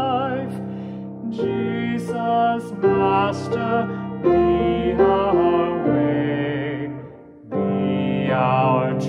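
A man singing a hymn solo while accompanying himself on piano, the voice carrying a slight vibrato over held chords. There is a short pause between phrases about seven seconds in.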